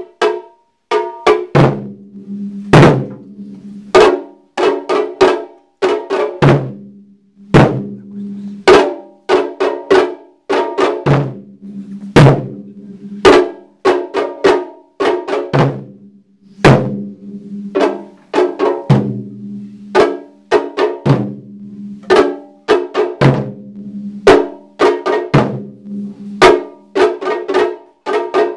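Taiko ensemble drumming: barrel-shaped nagado-daiko and smaller drums on stands struck with wooden sticks, in a driving rhythm of clustered beats that repeats about once a second, the low drum tones ringing on under the sharp hits.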